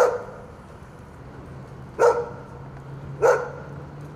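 A dog barking three times, the barks about two seconds and then about a second apart, over a low steady hum.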